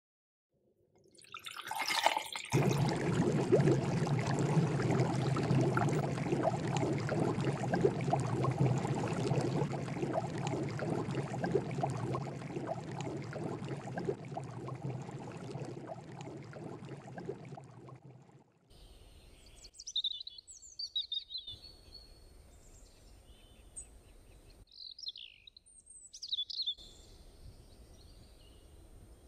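Water splashing and bubbling in a steel cooking pot for about sixteen seconds, fading out near the end. After that, faint birds chirp: a few short high calls, a few seconds apart.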